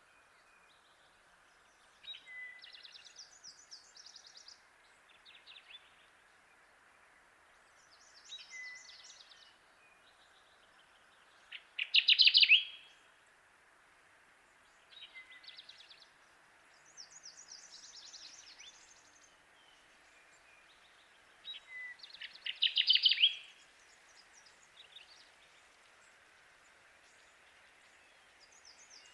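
Kirtland's warbler singing: two loud, rapid songs of about a second each, roughly ten seconds apart. Fainter, higher-pitched bird song comes in between, over a steady background hiss.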